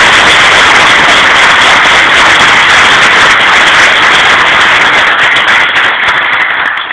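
Audience applauding steadily in a large hall, thinning out and dying away near the end.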